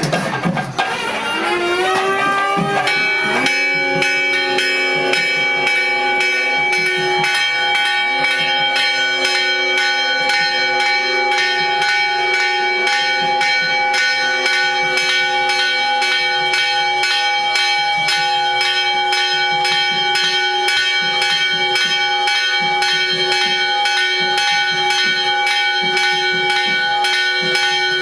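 Temple bells rung continuously during the pooja, struck about three times a second so that their ringing tones hold steady underneath.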